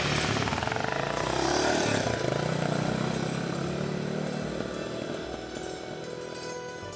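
Enduro motorcycle engine running under way, its pitch falling and rising again as it revs and shifts, then easing off a little toward the end.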